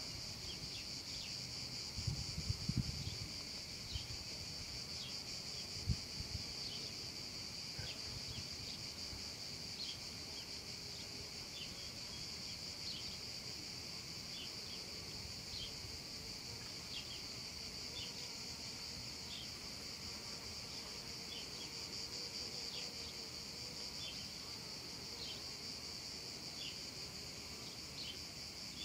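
Cicadas singing in chorus: a steady, unbroken high buzz, with short high chirps scattered through it. A few low rumbles from wind or handling on the microphone in the first few seconds.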